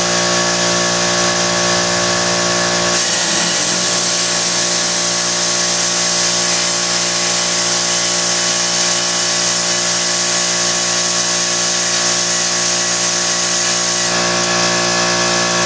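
A power tool's motor running continuously at a steady pitch.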